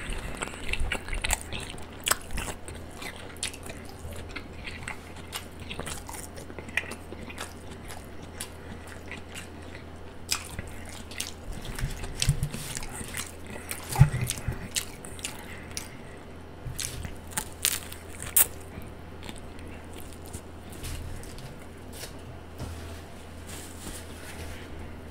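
Close-miked chewing and biting of a Subway spicy Italian sub, with many sharp mouth clicks and a few louder bites.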